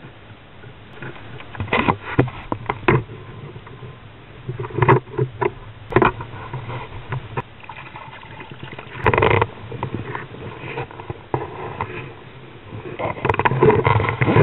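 Irregular knocks, clicks and rustles of a speckled trout being handled in a kayak, with a short splash of the fish thrashing at the surface about nine seconds in and a longer burst of handling noise near the end.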